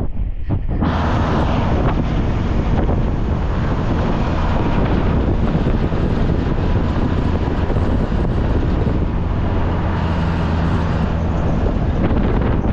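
Pickup truck driving along a paved road, its engine running steadily under loud wind buffeting the microphone.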